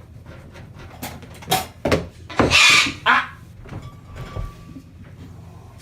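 A few sharp knocks, then a pet bird's loud harsh screech of about half a second, about two and a half seconds in, followed by a shorter call.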